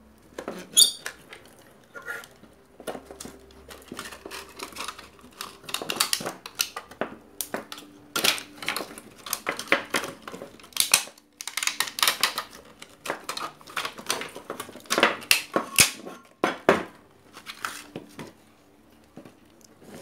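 Irregular clicks, knocks and light metallic clatter of hand work on a desktop computer power supply as it is being taken apart.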